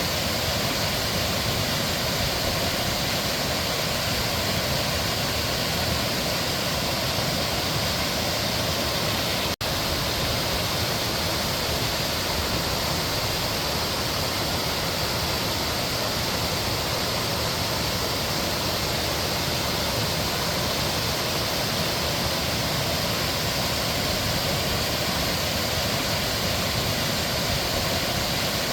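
Mountain stream water rushing and splashing in a steady, unbroken wash of noise. A momentary dropout about ten seconds in briefly cuts the sound.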